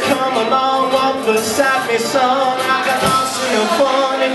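Live band playing a song: a man singing at the microphone over acoustic guitar and drums with cymbals.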